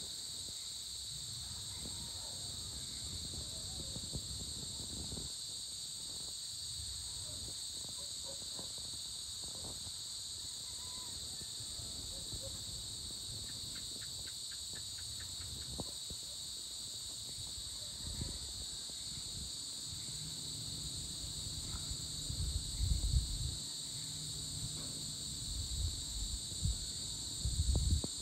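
Evening insect chorus: a steady, high-pitched, continuous trilling. A few low rumbles come in over it in the last several seconds.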